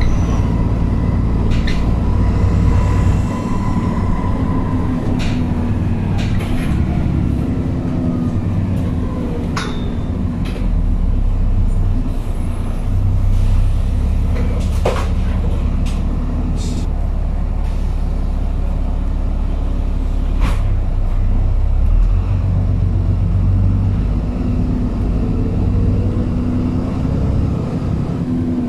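Alexander Dennis Trident 2 Enviro400 double-decker bus heard from inside the lower deck: the diesel engine and drivetrain running as the bus drives, the engine note rising and falling. Scattered clicks, knocks and interior rattles sound throughout.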